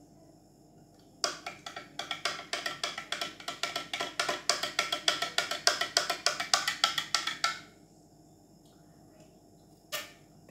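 A spoon stirring chocolate milk in a glass, clinking quickly against the side about five times a second for around six seconds; each clink rings briefly. Near the end comes a single sharp tap.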